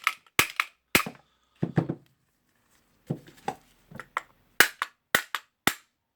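Hammer blows, about a dozen sharp knocks in irregular runs, some bright and metallic and a few duller, knocking the armature out of the rotary hammer's aluminium gear housing. The blows are kept light so as not to break the aluminium.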